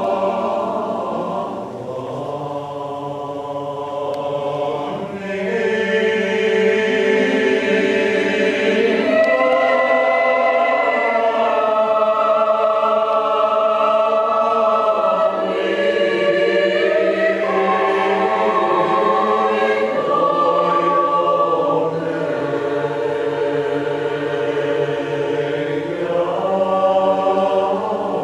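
Mixed choir of women's and men's voices singing a cappella in sustained, slowly changing chords, growing louder and fuller about five seconds in.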